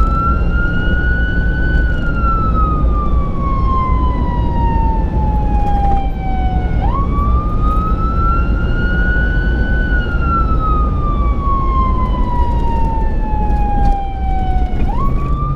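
Emergency vehicle siren on a slow wail: the tone climbs briefly, falls slowly for about five seconds, then snaps back up, twice. Underneath is the steady low rumble of the vehicle driving, heard from inside its cabin.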